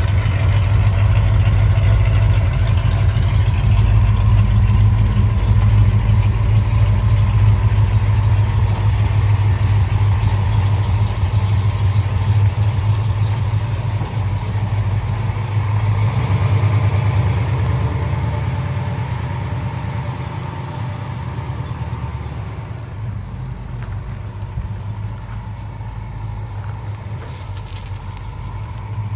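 1968 Dodge Charger's V8 engine running steadily through its Pypes X-pipe exhaust, getting gradually quieter over the second half.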